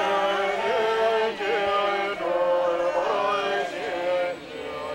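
Tibetan prayer chanted in long sung notes with small turns in pitch, in phrases broken by brief pauses.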